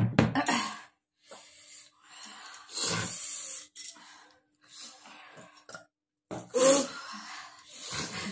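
A person coughing and breathing hard through the mouth in a series of harsh bursts, burned by very hot chillies.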